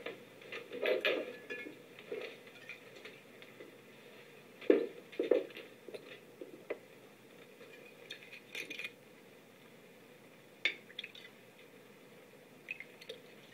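Glass whiskey bottle and shot glasses being handled and set down on a table: a scatter of short clinks and knocks, the loudest two close together about five seconds in, heard off a television.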